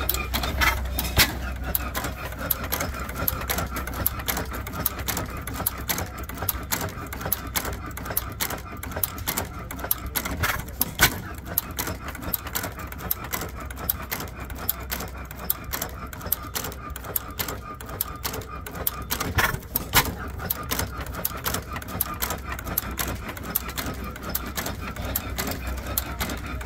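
Nelson stationary gas engine running with a rapid, irregular mechanical clicking and clatter over a steady low hum. A few louder clicks stand out about 11 seconds in and again around 20 seconds.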